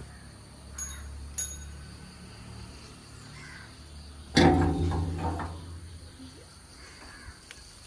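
Steel gate being unlatched and swung open: two sharp metallic clinks, then about halfway through a sudden loud scraping screech of the metal gate that fades over a second or so.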